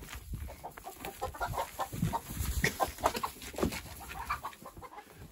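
Several chickens clucking in many short, overlapping calls.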